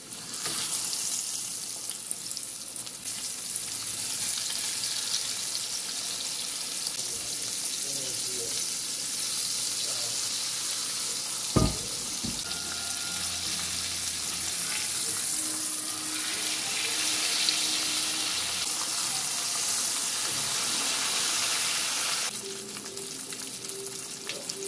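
Flour-dredged fish fillets frying in hot oil in a skillet: a steady, loud sizzle that starts as the first fillet goes into the oil, with one sharp click about halfway through.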